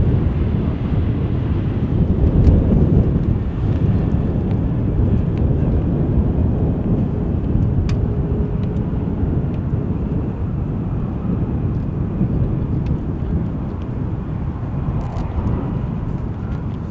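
Boeing 737-800's CFM56 jet engines rumbling as the airliner rolls down the runway, a deep steady roar that slowly fades as the aircraft moves away.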